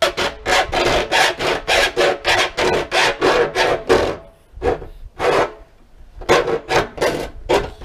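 Hand hacksaw cutting an angled corner off a metal rain gutter: a fast run of rasping back-and-forth strokes, about three or four a second, with a couple of short pauses a little past the middle before the strokes pick up again.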